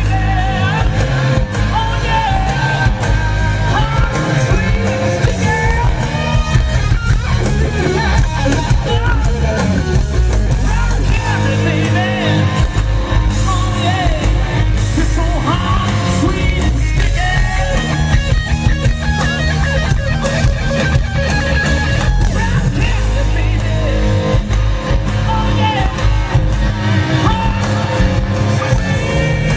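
Live rock band playing a song with a lead singer, with electric guitar, bass and drums.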